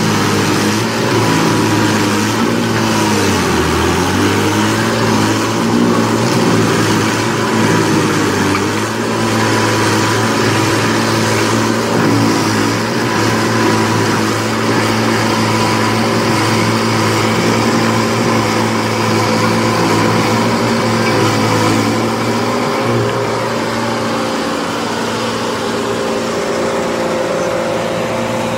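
Rayco stump grinder running at full throttle, its engine holding a steady drone under the rasping of the cutter wheel chewing a stump into chips. About three seconds in, the engine bogs down briefly under the load of the cut and then picks back up.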